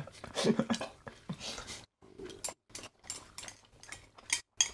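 Chopsticks clicking and scraping against small ceramic bowls while eating, a string of short, light clicks at uneven intervals.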